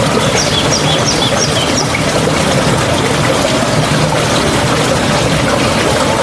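Steady rush of flowing water. A bird calls a quick run of about five short, high notes in the first two seconds.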